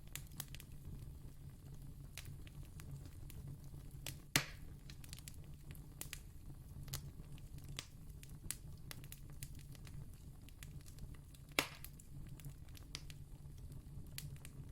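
Fire crackling, with many small irregular pops and two louder snaps, about four seconds in and again near twelve seconds, over a low steady hum.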